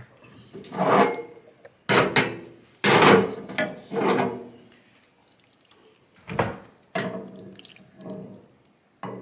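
A wooden spoon scraping a pan and thick, creamy flat glass noodles sliding wetly into a ceramic baking dish, in about seven separate scrapes.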